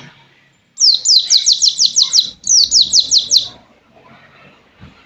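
A white-eye (pleci) singing two rapid runs of sharp, high, downward-sweeping notes, about five a second: the 'pistol air' rifle-like song type, thick with bullet-like notes.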